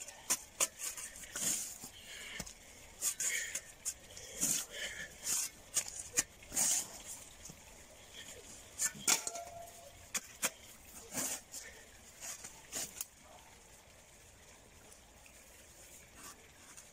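Steel spade blade chopping and scraping into dry, cracked soil: a run of irregular sharp knocks and scrapes for about the first thirteen seconds, then quieter.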